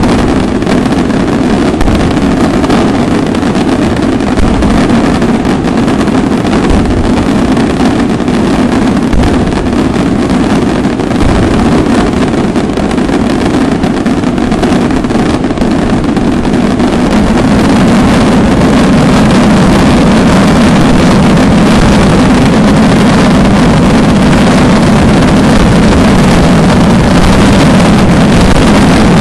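A daytime fireworks barrage: firecrackers bursting so rapidly that they merge into one continuous loud crackling roar, which grows louder and steadier from about 17 seconds in.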